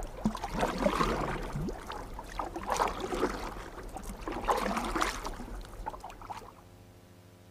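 Faint, irregular rustling and stirring of a lecture-hall audience, fading out about six and a half seconds in.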